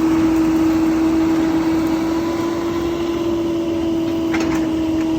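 Diesel engine and hydraulics of a CAT 308 excavator running steadily, with a constant even hum. A couple of faint short clicks come near the end.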